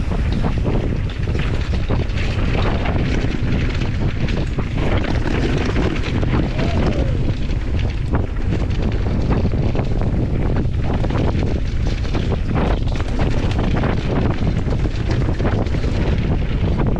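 Wind buffeting the microphone of a camera riding along on a mountain bike, a steady low rumble, with frequent rattles and knocks from the bike over the rough dirt trail.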